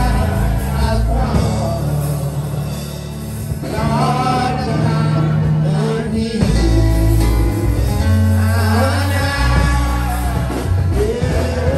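Live gospel singing, a man leading into a microphone with others singing along, over amplified instruments with a strong, heavy bass.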